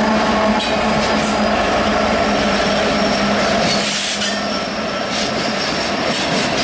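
Union Pacific diesel freight locomotives passing close by, their engines running with a steady drone. About four seconds in the engine sound fades under the rumble of a double-stack intermodal train's wheels on the rail, with faint high wheel squeal.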